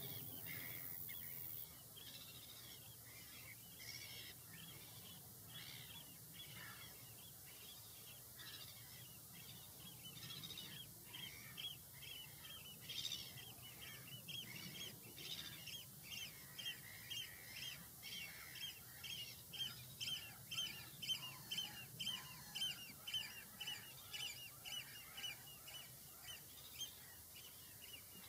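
A bird calling over and over with short harsh calls, scattered at first, then settling into a regular run of about two calls a second that grows louder through the second half.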